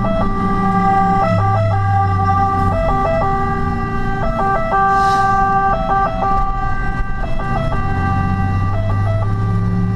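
Fire engine's two-tone siren heard from inside the cab, switching back and forth between two pitches, over the truck's diesel engine running. A brief hiss about halfway through.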